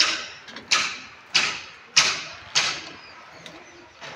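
Five sharp knocks at a steady pace, about one every two-thirds of a second, each ringing briefly; they stop about three seconds in, leaving faint ticks.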